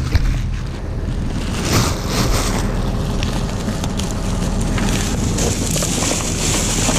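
Boat engine running steadily, with wind buffeting the microphone and a plastic bag rustling as it is handled.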